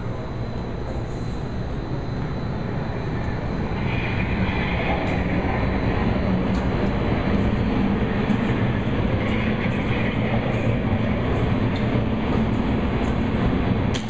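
Hurricane wind simulator booth running: its blower and the rushing air make a steady, loud noise that grows stronger about four seconds in.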